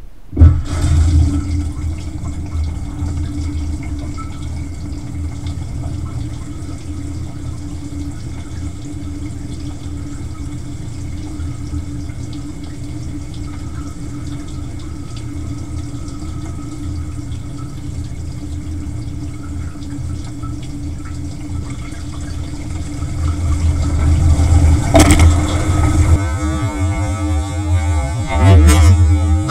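Dishwasher starting up and running, heard from inside the tub: a steady low pump hum with water filling and sloshing. The water noise grows louder toward the end as the spray splashes harder.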